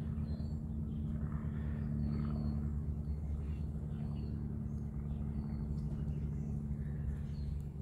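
A steady low machine hum, with faint short high chirps about every second.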